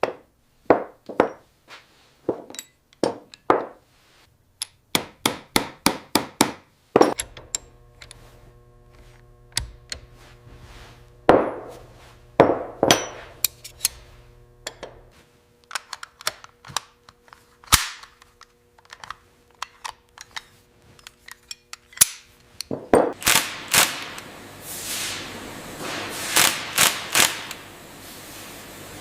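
A long series of sharp metallic clicks and knocks, often in quick runs, like metal parts being handled and worked. A steady machine hum runs beneath them from about a quarter of the way in until about three quarters through, and near the end the clatter thickens.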